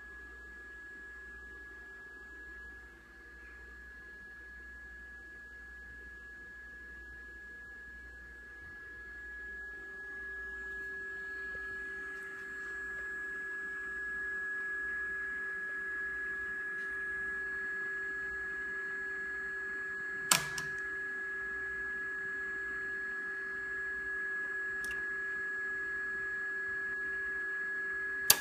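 Steady high electronic whine with a lower steady tone under it from the powered-up analog computer and HP 135A X-Y recorder. The whine grows louder about ten to fourteen seconds in. A sharp click comes about twenty seconds in, and another as a switch on the recorder's control panel is flipped at the end.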